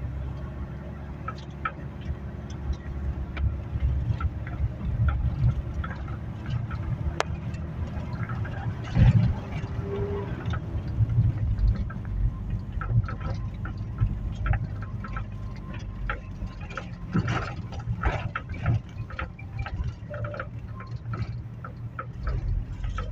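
Car interior while driving: a steady low rumble of engine and road noise, with scattered small clicks and knocks.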